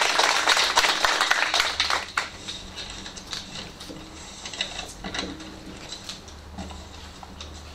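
Audience applause for about two seconds, dying away into scattered light clicks and handling noises at the lectern.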